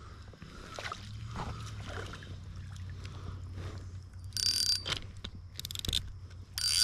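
Fishing reel's drag buzzing in three short bursts in the second half as a big fish pulls line off against it, with quieter reel and line sounds before.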